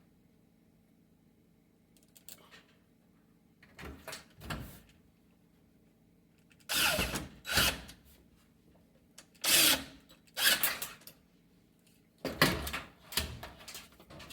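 Cordless drill/driver run in a string of short bursts, each under a second, starting about four seconds in: screws being driven while the range's front panel is fitted.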